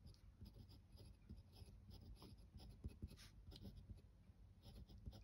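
Glass dip pen nib scratching faintly across rough-textured watercolour paper in short, irregular strokes as it writes.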